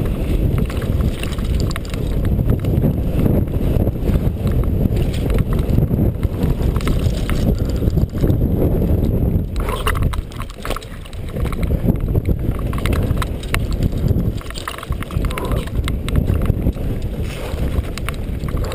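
Mountain bike descending a dirt trail: tyres rumbling over dirt and the bike rattling over bumps, with heavy wind buffeting on the helmet camera's microphone. Twice, about ten and fifteen seconds in, the noise drops briefly.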